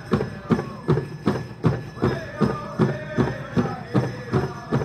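Powwow drum beaten in a steady beat, about two and a half strokes a second. Powwow singers' voices join over it from about two seconds in.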